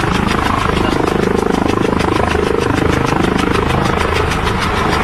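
Helicopter on the ground with its rotor turning at speed: engine running steadily under a fast, even chop of the rotor blades.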